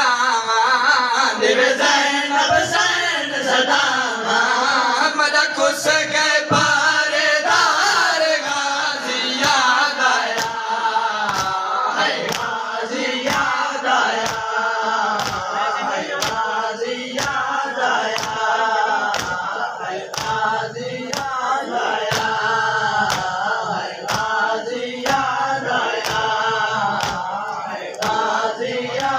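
A group of men chanting a noha, a Shia mourning lament, in chorus. Their hands strike their chests in unison about one and a half times a second as matam.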